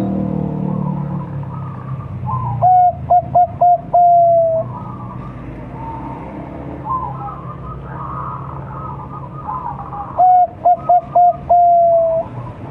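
Young Bangkok-strain zebra dove (perkutut) cooing twice, several seconds apart: each phrase is a few short clipped notes followed by one long held coo that sags slightly at the end. Fainter chirping of other birds runs underneath.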